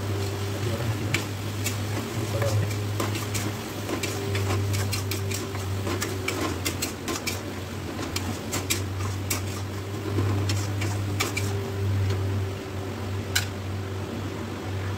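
Spatula scraping and knocking against a black kadai while stirring onion and ginger-garlic paste frying in oil, in irregular short clicks that are thickest mid-way, over a steady low hum.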